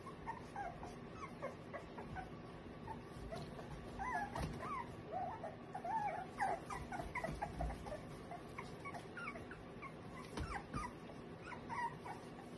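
A litter of eight-week-old American cocker spaniel puppies whimpering, many short high whines overlapping one another, busiest in the middle and again near the end. A few light knocks come in between.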